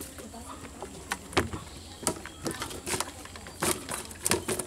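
About ten irregular sharp slaps and taps as fish are picked out of a cast net lying on wet mud and put into a plastic tub.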